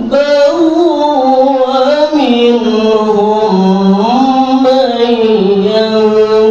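A man reciting the Qur'an in the melodic tilawah style, singing one long unbroken phrase. He picks it up right after a quick breath and holds ornamented notes that slide down in pitch and back up.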